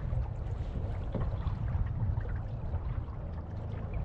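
Wind buffeting the action-camera microphone, a steady low rumble, over water sloshing against a kayak hull as it moves across choppy lake water.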